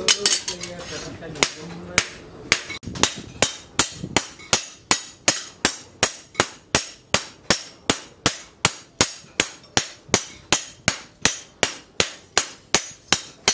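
Hammers striking a steel machete blade on a steel anvil, each blow ringing. After the first few seconds the blows fall in a steady beat of about three a second, as a smith's hand hammer and a striker's sledge work the blade together.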